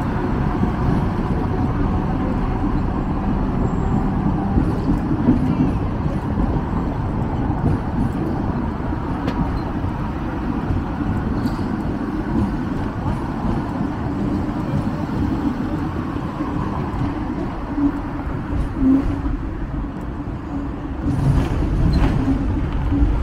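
Electric double-decker Hong Kong tram running along its tracks, a steady low rumble of wheels on rails and motor with street traffic. It grows louder near the end with a sharp click.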